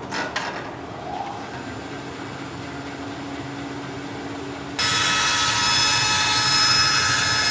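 Bandsaw running with a steady hum. About five seconds in, the blade bites into a wooden board and the cut comes in as a loud, high-pitched whine.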